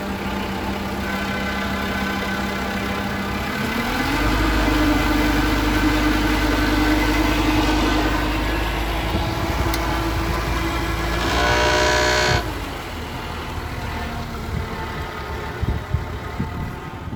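Boat engine running under way; about four seconds in its note rises and grows louder as the throttle opens, then holds steady. A horn sounds for about a second near twelve seconds in, and the engine note then drops away, leaving a quieter, rougher sound.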